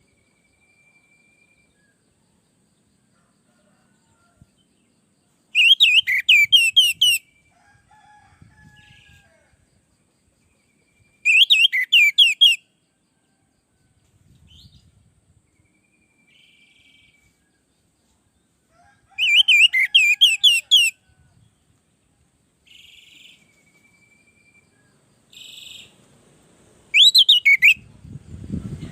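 Orange-headed thrush singing: four loud phrases of quick, repeated down-slurred whistled notes, each about a second and a half long and spaced several seconds apart, with fainter, softer notes in between.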